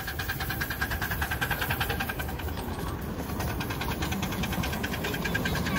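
Miniature steam locomotive running past, its exhaust beating in a rapid, even rhythm over a steady hiss, with its passenger carriages running on the rails.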